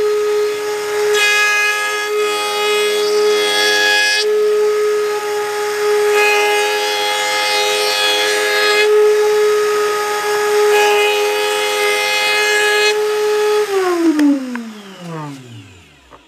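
Table-mounted router running with a steady high whine, the sound turning harsher three times as the bit cuts into the elm and epoxy-resin board. About fourteen seconds in it is switched off, and the motor winds down with its pitch falling away until it stops.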